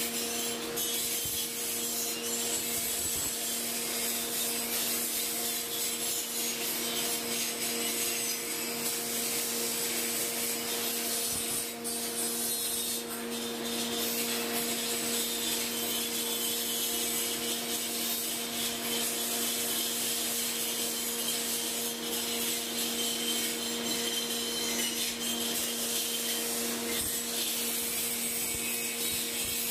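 Grinding machine running steadily: a constant motor hum under the hiss of the abrasive wheel grinding metal, dipping briefly about twelve seconds in.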